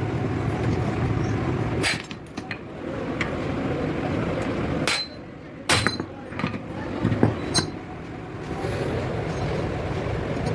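A few separate metal knocks and clinks of tools and parts during front wheel bearing work, over a steady background hum.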